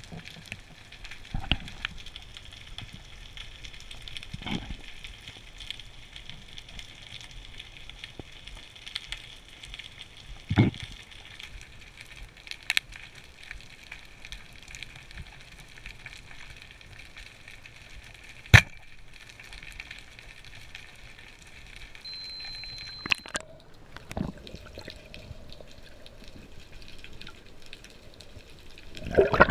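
Underwater ambience heard through the submerged camera: a steady crackling hiss broken by scattered knocks and sharp clicks. One click past the middle is much louder than the rest. About three-quarters in there is a short faint beep.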